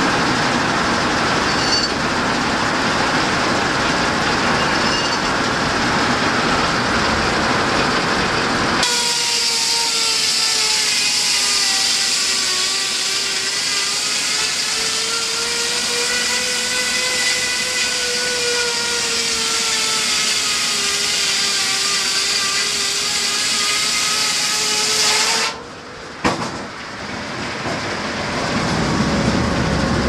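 Steam-powered circular sawmill running: a dense, rough cutting rasp for about nine seconds, then an abrupt change to a whine that slowly rises and falls in pitch over a hiss. It drops off suddenly near the end.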